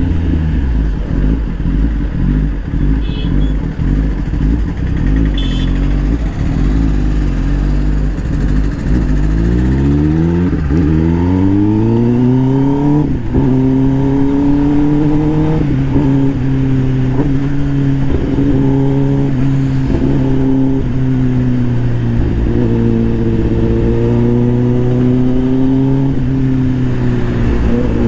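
Kawasaki ZX-10R's inline-four engine and exhaust on the move. It runs at low revs, then accelerates with a steeply rising pitch for about three seconds, drops sharply at an upshift, and cruises at fairly steady revs with a few brief dips.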